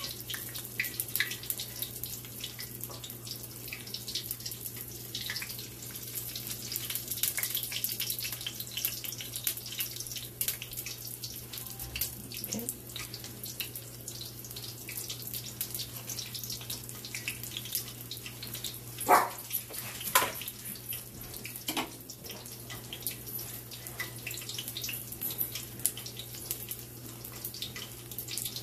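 Saltfish fritters frying in hot oil: a steady crackling sizzle. Two sharp knocks about two-thirds of the way through.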